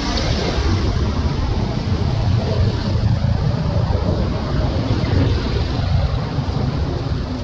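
Wind buffeting the microphone outdoors: a steady low rumble with a fainter hiss above it.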